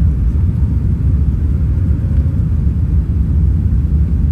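Steady low rumble of an Airbus A380 airliner in flight, engine and airflow noise heard inside the cabin.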